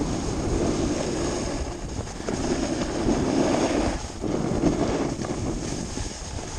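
Wind rushing over an action camera's microphone during a fast snowboard descent, mixed with the board scraping and hissing over packed snow. The noise swells and dips every couple of seconds as the rider turns.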